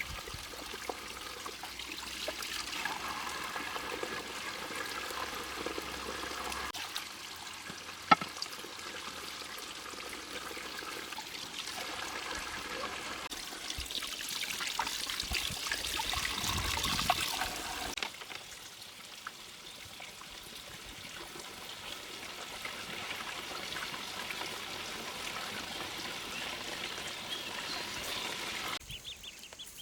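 Water running and trickling, its sound changing abruptly several times, with one sharp click about eight seconds in.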